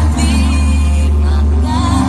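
Pop music with singing, steady bass and held notes. No firework bangs stand out over it.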